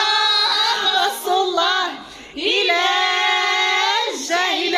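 High female singing voice, unaccompanied, breaking off briefly about two seconds in and then holding one long note.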